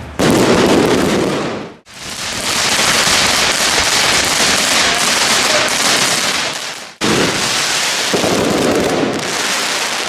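Dense fizzing and crackling of fireworks, cut off sharply twice, about two seconds in and again about seven seconds in.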